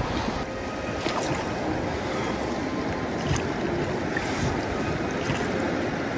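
Steady rush of a river's current around a small inflatable pontoon boat, with a couple of faint knocks about a second in and again near the middle.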